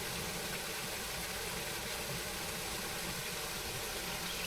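Small creek waterfall pouring over a limestone ledge, a steady rush of falling water.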